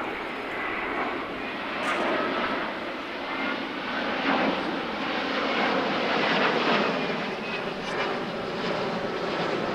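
Airbus A350-900 airliner flying a display pass overhead, its two Rolls-Royce Trent XWB turbofans giving a steady jet noise with faint, thin whining tones over it. The noise swells a little toward the middle.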